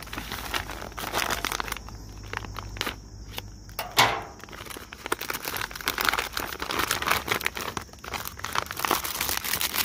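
Thin green plastic ration bag crinkling and rustling as hands open it and rummage inside, with one louder burst of crinkling about four seconds in.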